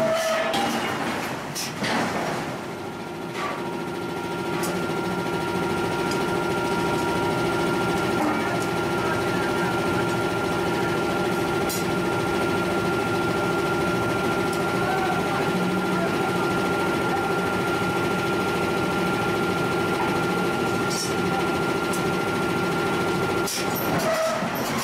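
Forging machinery running with a steady drone: a low hum and a thin higher whine set in about two seconds in and stop just before the end. A few sharp metal knocks come at the start and near the end.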